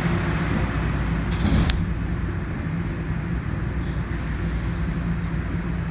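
Steady low rumble of a Toronto Rocket subway car running on the rails, heard from inside the car, with a brief sharp clatter about a second and a half in.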